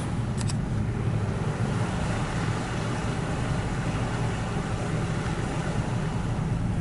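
Steady low rumble of a car driving, heard from inside the cabin: engine and tyre noise on a wet road. Two faint ticks about half a second in.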